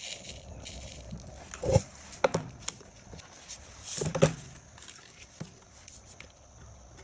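A brief sandy hiss of coloured sand sprinkled from a plastic spoon. Then a few sharp knocks and rattles as the sand-painting board is handled, lifted off the table and set back down, the loudest about two seconds in and around four seconds in.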